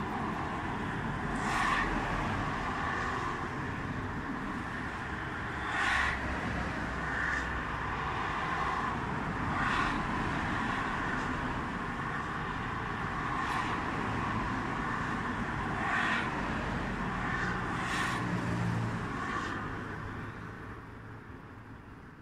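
Steady road traffic noise with several vehicles passing, each swelling briefly for a second or so, and the sound fading out near the end.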